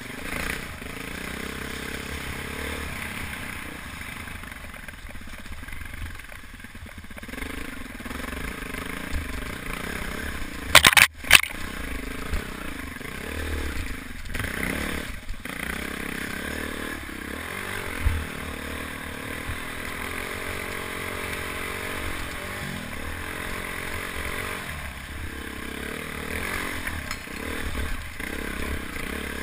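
Single-cylinder dual-sport motorcycle engine running at varying revs, its pitch rising and falling as the bike climbs a rocky trail. Knocks and clatter come from the bike going over rocks, with the loudest, a sharp burst, about eleven seconds in.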